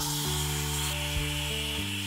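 Espresso machine's steam wand letting out a loud, steady hiss of steam.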